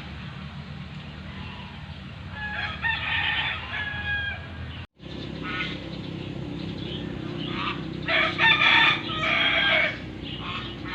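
Rooster crowing and chickens clucking in two bouts, one about two seconds in and a louder one near the end, over a steady low rumble.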